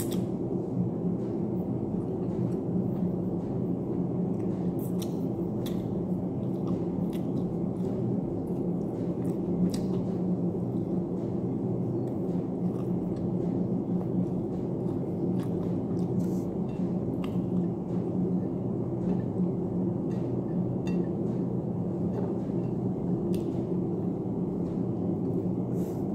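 A steady low hum, with many small clicks and crunches scattered through it from someone chewing fried chicken and rice.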